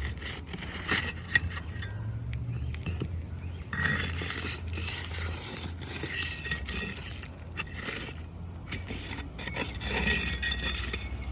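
Irregular scraping and rubbing of three-tab asphalt shingles being worked loose, with small clicks, as their seal strip is broken.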